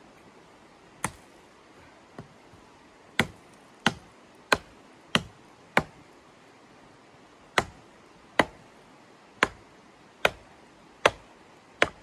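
Hatchet chopping into a thin wooden pole: about a dozen sharp chops, roughly one to two a second, with a pause of nearly two seconds midway.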